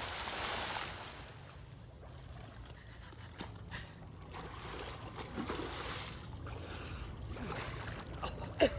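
Water splashing, the loud rush fading within the first second, then quieter sloshing and lapping with occasional small knocks.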